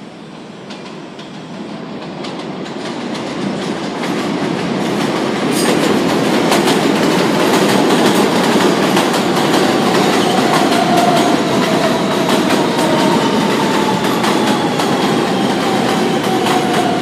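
New York City subway train approaching on the elevated track and pulling into the station. Its rumble grows louder over the first six seconds or so, the wheels clack over the rail joints, and a faint falling whine comes in over the last few seconds as the train slows.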